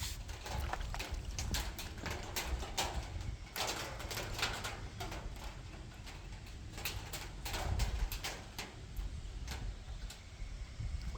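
Irregular clicks, taps and short rustling bursts over a low rumble.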